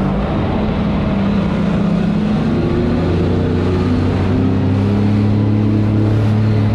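Jet ski engine running at speed on open water, its note firming and rising a little about two and a half seconds in as it picks up speed, over a steady rush of wind and spray.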